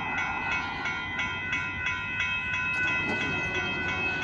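Railroad grade-crossing warning bell ringing with quick, even strikes about four a second, its tones hanging on between strikes, over a low background rumble, as the crossing signals warn of an approaching train.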